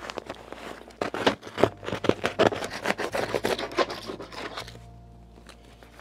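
Knife cutting through foil-faced fiberglass duct insulation, with the foil crinkling and tearing as the insulation over a tap hole is cut out: a rapid run of scratchy cuts and rips that stops about four and a half seconds in.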